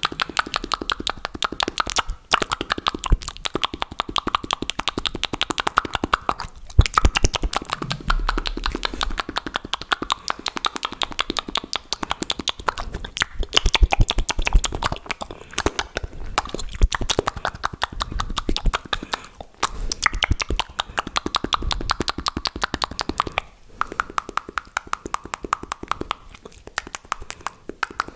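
Fast, wet mouth sounds close to the microphone: a rapid, continuous stream of tongue clicks, pops and smacking.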